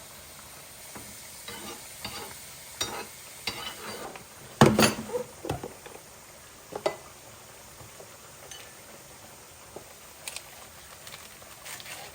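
Kitchen clatter: utensils knocking and scraping against dishes and pans in short irregular clinks, loudest in a cluster near the middle, over a steady low hiss.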